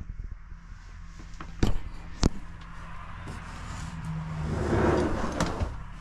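Two sharp knocks about half a second apart, then a swell of rustling with a click near its peak, over a low steady hum.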